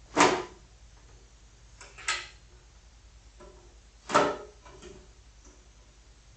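Fractal Design Node 304 mini-ITX case's outer cover being unlatched and lifted off, giving sharp clacks of the panel against the chassis. Two loud knocks come about four seconds apart, with a lighter one and a few faint ticks between them.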